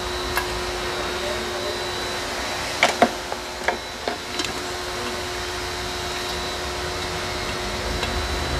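Steady mechanical hum of a running machine, with a few sharp clicks and taps between about three and four and a half seconds in.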